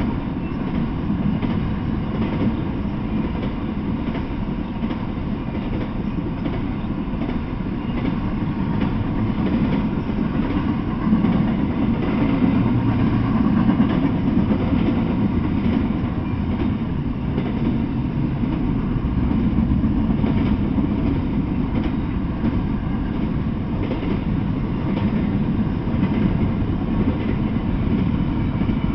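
Intermodal freight train of container and trailer well cars rolling steadily past, steel wheels rumbling on the rails with scattered clicks from the wheels over the rail joints.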